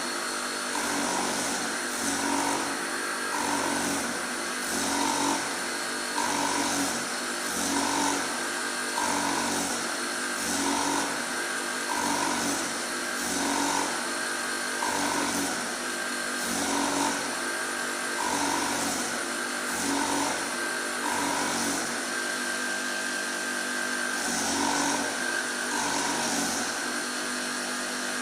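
Surface grinding machine running with a steady high whine from the spinning wheel, swelling about once a second as the reciprocating table carries the workpiece back and forth under the wheel during a finishing pass.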